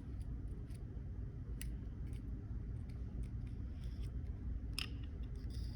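A few sharp light clicks and small handling noises, the clearest about one and a half seconds in and near the end, from small repair tools and parts being handled on a workbench, over a steady low hum.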